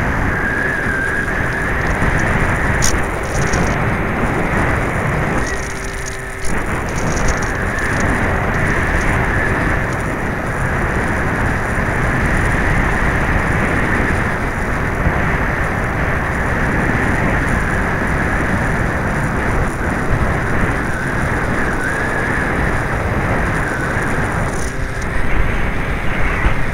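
Electric motor and propeller of an FPV-Raptor 1600 model plane running steadily under wind rush, heard through its onboard camera's microphone. The sound dips briefly about six seconds in. The propeller is slightly out of balance and the wind is very gusty.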